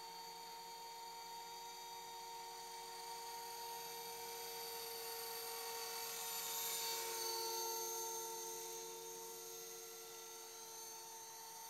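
Align T-Rex 450 electric radio-controlled helicopter in flight: a steady high whine from its motor, gears and rotor. It grows louder about six to eight seconds in as the helicopter comes close, then settles a little lower in pitch.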